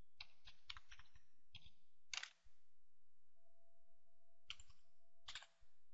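Computer keyboard typing, faint, in short runs of keystrokes. There is a run in the first second, a few more keys ending in a sharper one about two seconds in, a pause of about two seconds, then another handful near the end.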